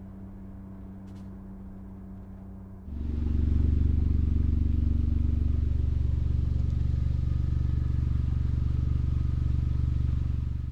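Motor vehicle running, with steady engine and road noise. About three seconds in it gets suddenly much louder, then holds a steady low rumble until it cuts off abruptly at the end.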